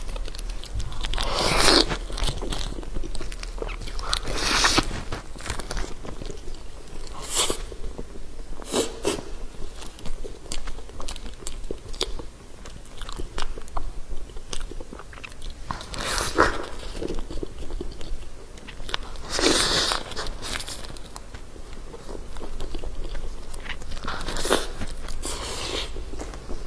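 Close-miked biting and chewing of a soft pink filled bun, with separate bites and mouthfuls every few seconds.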